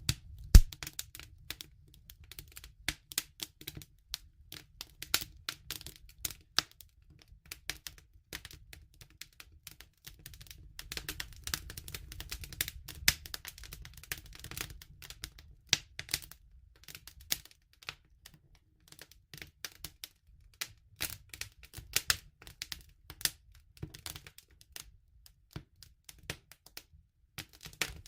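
Wood fire crackling: irregular sharp pops and snaps, a loud one about half a second in, over a low steady rumble.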